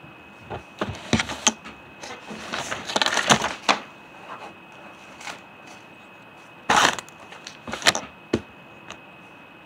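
Close handling noise: scattered clicks and knocks, a stretch of rustling and scratching about two to four seconds in, one short louder rustle near seven seconds, and a few more clicks after it.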